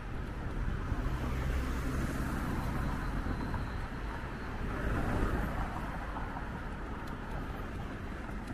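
City street traffic noise heard while riding along the road: a steady low rumble, with a vehicle passing and swelling louder about five seconds in.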